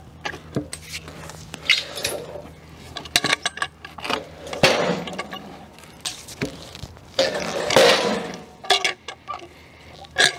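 Heavy squared southern yellow pine cant being turned and shifted on a portable bandsaw mill's steel bed and log stops: scattered wooden knocks and metal clinks, with two longer rushes of sliding, scraping noise about halfway through and again near the three-quarter mark.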